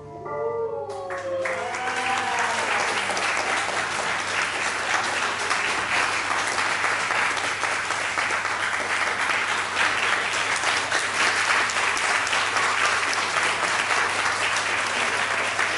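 The final held notes of a tango recording die away in the first second or two, then an audience applauds with steady, sustained clapping.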